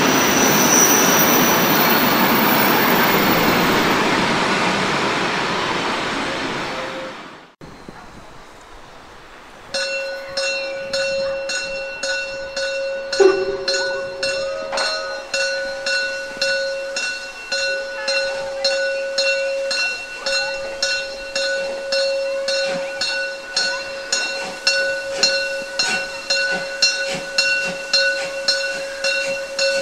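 Coaches of a departing train rolling over the tracks, fading out. After a break, a class 50 steam locomotive standing at a platform with a steady whine and a regular beat of about one stroke a second that quickens a little.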